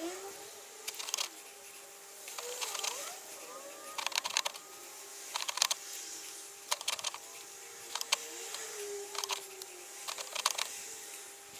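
Warco WM180 mini lathe running with a steady whine, with clusters of sharp clicks every second or two and a pitch that wavers now and then.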